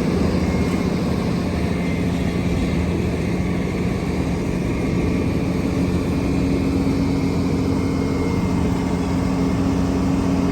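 Engines of heavy road-paving machinery running steadily, a continuous low drone with a steady hum. The higher of its two tones grows stronger about halfway through.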